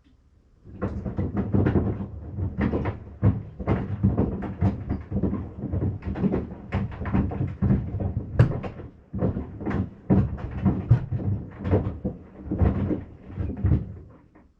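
Maytag washing machine running its wash action with sandals inside, the sandals knocking and thudding irregularly against the drum. The knocking starts about a second in and stops near the end.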